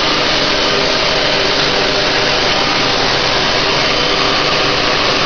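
An electric blower running steadily: a loud, even rush of air.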